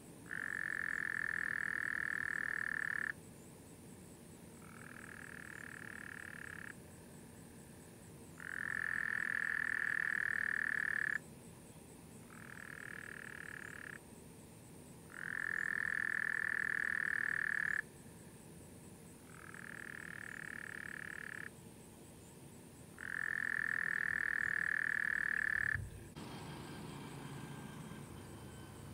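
Frogs calling in long trills, each about three seconds of a steady high note, with a loud nearby caller and a quieter one answering in turn. Near the end a brief low thump.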